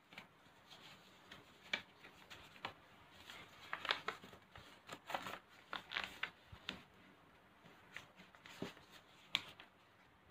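A sheet of paper being folded and creased by hand into a paper airplane: faint, irregular crackles and rustles of the paper, a few sharper ones standing out.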